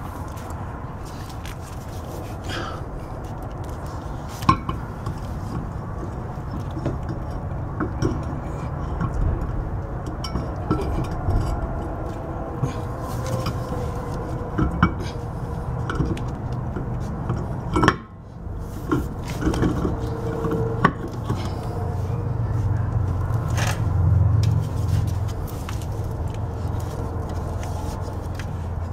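Scattered knocks and metallic clinks as a steel car wheel is handled and fitted onto the hub, over a steady low rumble that swells about two-thirds of the way through.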